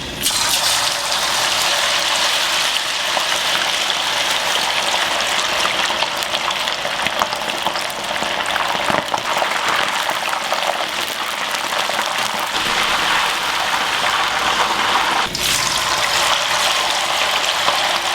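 Chicken pieces deep-frying in hot oil: a steady, dense sizzle full of small crackling pops.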